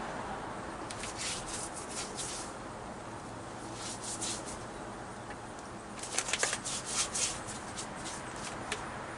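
Liquid concrete bonding adhesive being squeezed out and applied to a cement wall, heard as several short bursts of crisp rustling and spattering. The loudest burst comes about six to seven seconds in.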